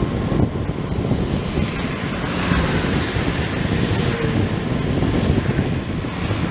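Wind buffeting the microphone of a camera mounted on a moving e-bike: a loud, steady rush of noise with small irregular gusts.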